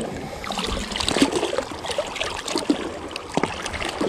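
Sea water splashing and sloshing as a tuna hanging from a rope is dunked and swished back and forth in the sea to wash it.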